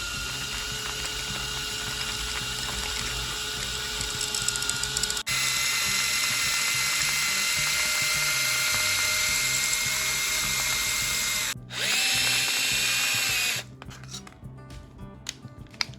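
Small electric power tool running steadily with a constant motor whine, cut off abruptly twice and stopping about 13.5 seconds in. Background music with a steady beat runs underneath and is left alone near the end.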